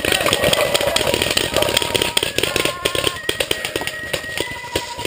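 Leaves and twigs brushing and crackling against a head-mounted camera as the wearer pushes through dense brush, an irregular run of close scratches and snaps.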